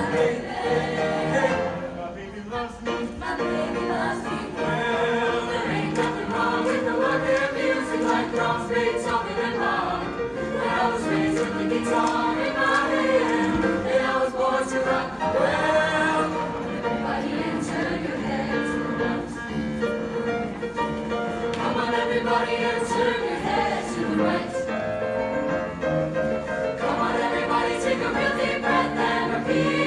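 A mixed show choir singing a song in harmony.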